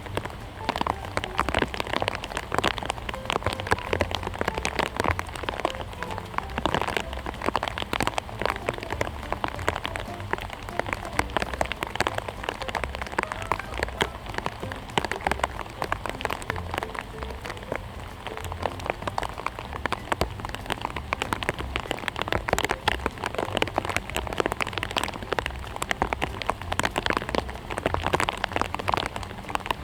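Rain falling in a steady, dense patter of small drops.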